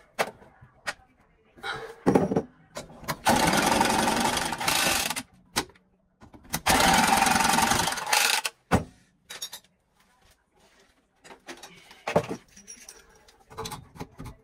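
Two loud bursts of harsh rasping noise, about two seconds each, as the end of a copper pipe is worked on, with short clicks and knocks of tools and fittings on the pipe around them.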